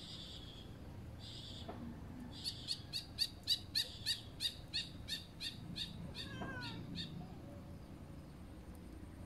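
An animal call: a run of about fifteen short, sharp, high chirps, a little over three a second and spacing out slightly toward the end, with a faint falling whistle among the last ones.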